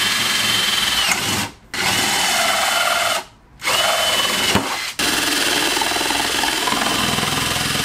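Cordless drill with a half-inch bit boring through PVC pipe, the motor whining steadily in several runs. It stops briefly about a second and a half in, again about three seconds in, and near five seconds, the whine dropping in pitch as the trigger is let off.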